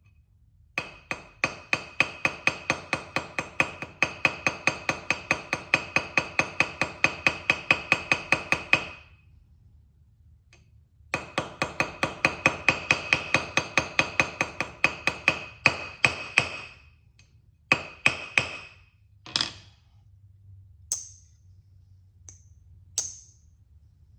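Small hammer rapidly tapping the handle pins of a knife against an anvil to peen them over, several light ringing strikes a second. There are two long runs with a pause between. After that come a few single taps and some lighter ticks near the end.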